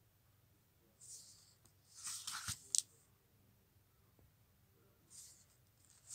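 Paper pages of a large picture book being turned by hand: a brief rustle about a second in, a longer rustle ending in a sharp flap of the page around two and a half seconds in, and another faint swish near the end.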